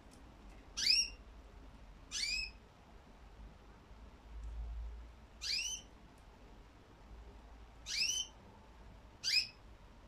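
Budgerigars calling: five short chirps spaced a second or more apart, each a quick note curving downward in pitch. A brief low rumble about halfway through.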